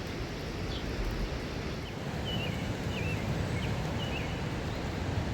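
Steady outdoor noise with a low wind rumble on the microphone, and a few short bird chirps in the middle.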